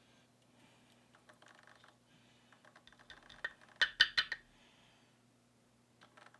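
Small metal clicks and taps as lock pins, springs and a tool are handled on a hard surface while a padlock is being gutted, with a quick run of sharper clicks about four seconds in.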